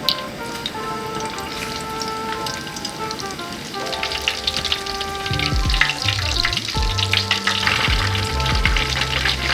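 Food sizzling and crackling in hot oil, the crackle growing louder about four seconds in, over background music.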